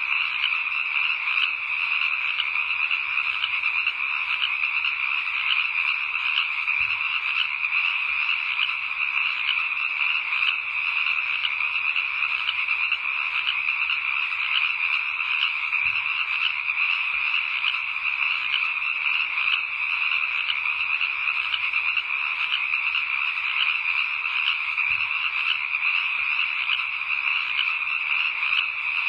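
A steady, unbroken chorus of many calling animals, high-pitched and densely layered with no pauses.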